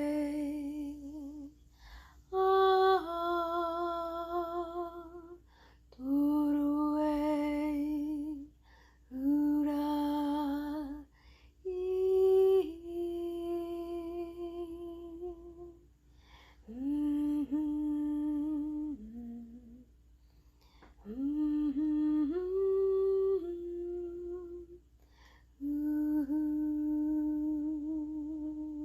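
A woman's voice humming a slow, wordless melody in about eight long held notes, each two to three seconds, with short breaths between them.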